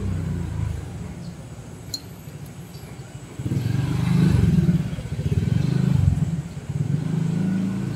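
A vehicle engine running close by, a low pulsing rumble that grows much louder about three and a half seconds in.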